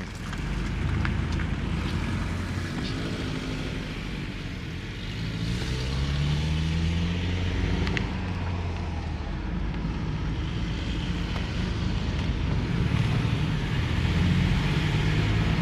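Chevy G20 van running on the road from inside the cab, engine hum with road noise. The engine pitch rises as it picks up speed about five seconds in, then holds fairly steady.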